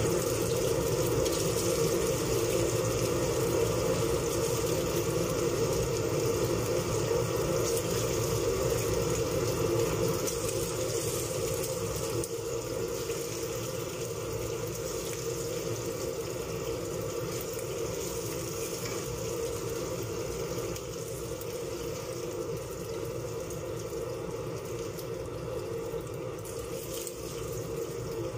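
Chicken frying in a pan of hot oil: a steady sizzle with a steady hum underneath, getting a little quieter about ten seconds in.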